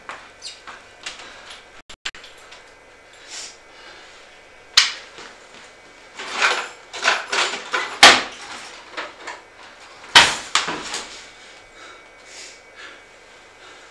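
A patio door being opened, then a person moving about a kitchen: scuffing steps and rustling, with sharp knocks about five, eight and ten seconds in.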